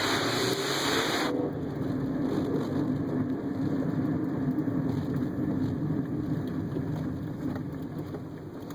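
Honda Civic's engine and drivetrain running while the car is driven, a steady drone; a hiss cuts off sharply about a second in.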